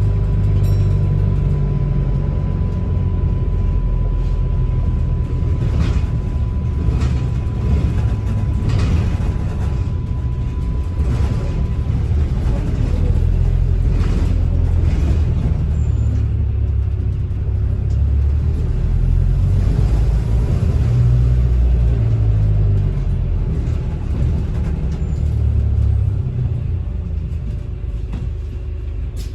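Double-decker bus on the move, heard from inside: a steady low engine and road rumble with scattered knocks and rattles. A thin steady tone sounds through the first dozen seconds.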